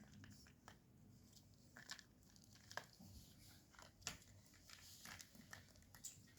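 Faint, irregular clicks and crinkly rustles from a kitten at play, scattered unevenly.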